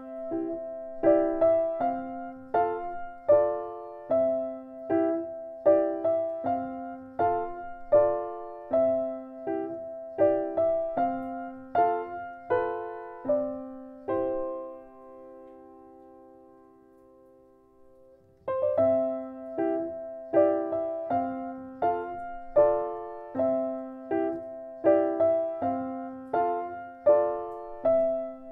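Piano music: an even, repeating pattern of struck notes. It dies away about fourteen seconds in and starts again about four seconds later.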